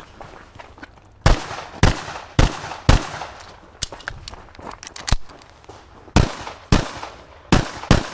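Semi-automatic pistol shots in rapid fire: four shots about half a second apart, a pause of about three seconds, then another string of shots near the end.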